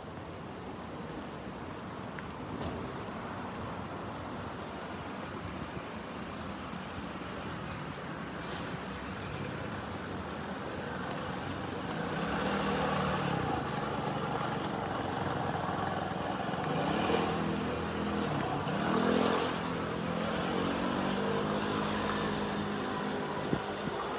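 Keikyu bus's diesel engine pulling away in street traffic, growing louder. From about halfway its pitch climbs and drops back about three times as it works up through the gears.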